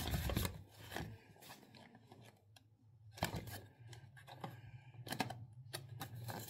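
Small cardboard Funko Mystery Minis blind box being handled and turned over in the hands: a few light taps, clicks and cardboard scrapes, over a faint low hum.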